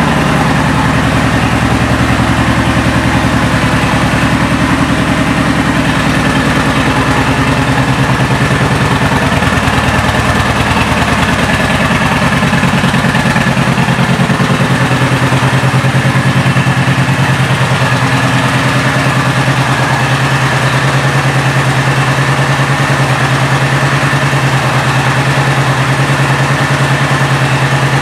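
Kawasaki Vulcan 1700 Vaquero's 1,700 cc V-twin idling steadily, freshly started.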